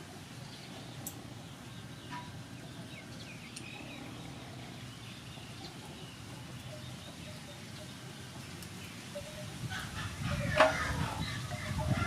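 Chickens clucking on and off over a steady low background, with a sharp knock about ten and a half seconds in.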